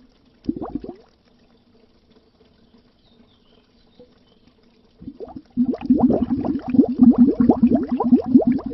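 Bubbles rising under water in a dense, burbling stream of quick low pops. There is a short burst about half a second in, then a pause of about four seconds with only faint traces, before the bubbling starts again about five seconds in and keeps going.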